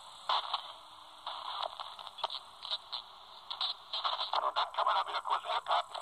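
Albrecht AE2990 AFS handheld CB radio receiving on the 27 MHz band while being stepped up through the frequencies: thin hiss from its speaker broken by short crackling bursts of garbled signals, which come thicker in the second half.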